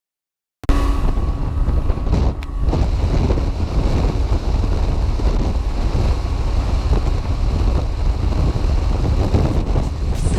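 Heavy wind buffeting the microphone on a fishing boat running at speed, with motor and water noise underneath. It cuts in abruptly about half a second in, after digital silence.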